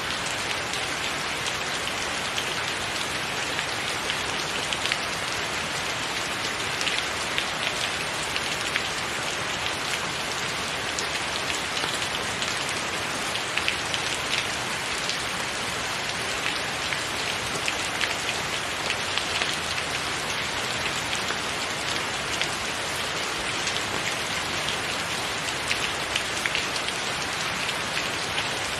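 Steady rain falling, many separate drop impacts ticking over an even hiss.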